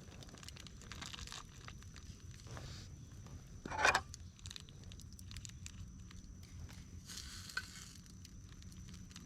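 Wood campfire crackling with scattered pops, and a louder burst of rustling noise about four seconds in.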